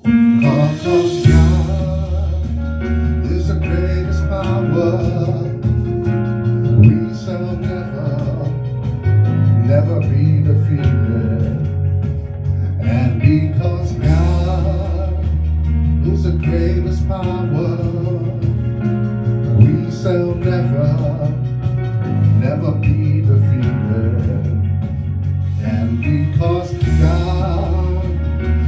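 Gospel song played by a band, with a heavy held bass line and guitar under a man singing.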